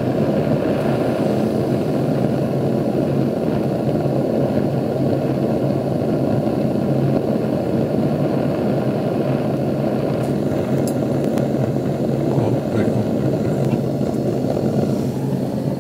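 Gas torch flame burning steadily with a rushing noise, heating a small brass end fitting to solder it onto a stranded steel wire.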